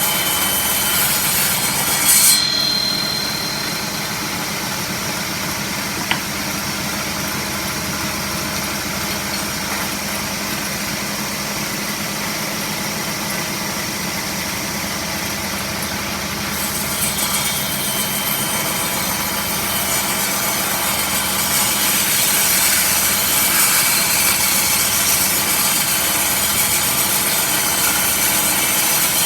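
Power saw running steadily and cutting wood. A short sharp noise comes about two seconds in, and the cutting hiss grows louder from a little past halfway.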